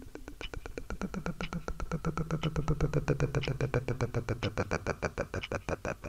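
Rapid, even clicking, about nine or ten clicks a second, over a low droning tone that swells in the middle and fades near the end.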